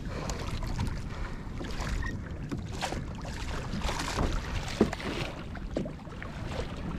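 Wind buffeting the microphone and sea water sloshing against a kayak hull, with a few sharp knocks scattered through.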